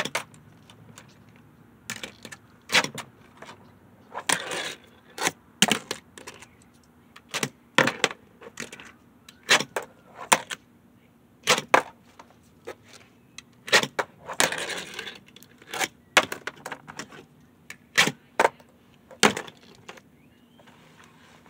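Tech Deck fingerboard being flicked and landed: repeated sharp, irregular clacks of the small deck and wheels hitting the hard tabletop and cardboard boxes, with a couple of short scraping slides.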